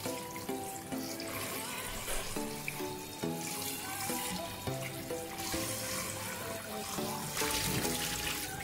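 Kitchen tap running into a stainless steel bowl of chicken feet as hands rub them clean, under background music. Near the end the water noise gets louder as the bowl is tipped and drained into the sink.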